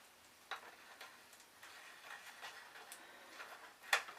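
Faint, irregular light clicks and ticks from a bicycle bearing press tool being handled and fitted through the frame pivot, with one sharper click just before the end.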